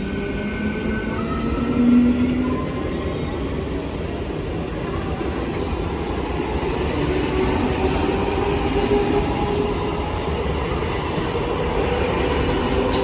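An Indian Railways train running past on the rails: a steady rumble with clickety-clack of the wheels and a faint hum that slowly shifts in pitch. A brief louder tone sounds about two seconds in.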